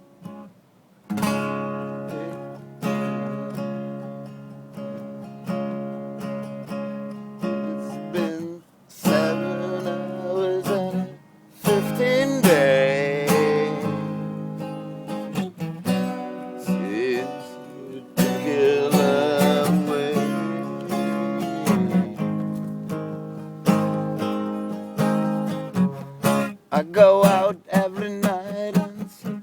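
Acoustic guitar strummed in slow, ringing chords, one every second or two. A singing voice with vibrato comes in about twelve seconds in and again around nineteen seconds.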